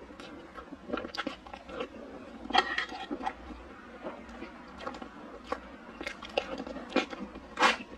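Close-miked eating sounds of soft, creamy chocolate mousse cake being chewed: wet mouth noises and short, irregular lip smacks, one louder smack near the end.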